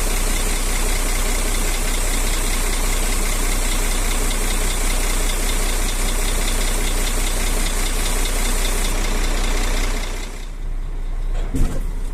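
Semi-truck tractor's diesel engine idling, with a steady hiss over it. The hiss cuts off about nine seconds in and the sound drops a second later. A single knock follows near the end.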